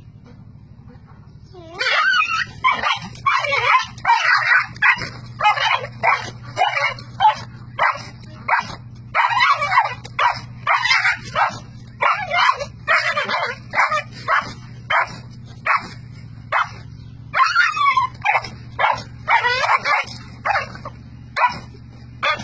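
Small dog yelping and whimpering over and over while a rooster pecks at it, starting about two seconds in: distress cries of a dog under attack. The short high cries come about twice a second.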